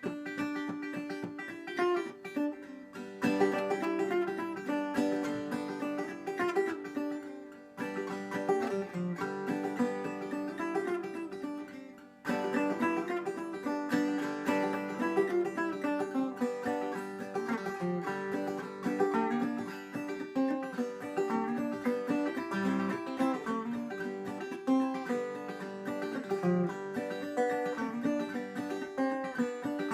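Homemade gas-can banjo played clawhammer style: a steady run of picked and brushed notes, with a brief break about twelve seconds in.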